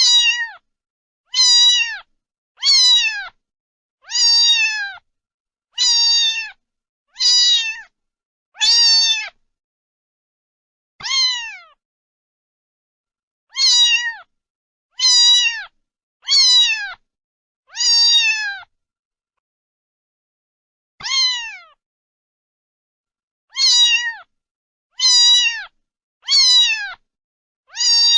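Cat meowing over and over, short high-pitched meows that drop in pitch at the end, mostly about one and a half seconds apart with a couple of longer pauses.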